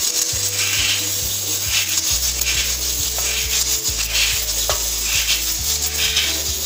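Chermoula of onion, herbs and spices frying in oil in a nonstick pan: a steady sizzle that swells about twice a second as a wooden spoon stirs through it.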